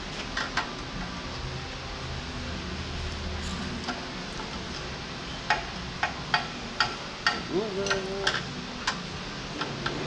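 Sharp metal clinks of a hand tool against the loader's steel hydraulic hard lines and fittings: about a dozen irregular clicks in the second half, over a steady background hum.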